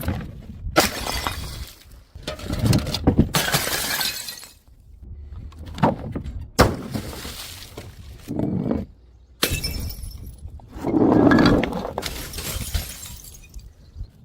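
Glass bottles smashing one after another, each a sharp crash followed by shards clattering and scattering, about every one to two seconds. A larger, fuller crash comes near the end.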